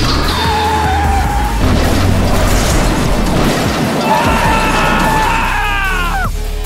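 Background music overlaid with a dense crash-and-rumble sound effect for a toy truck crash. A sliding tone falls steeply about four seconds in.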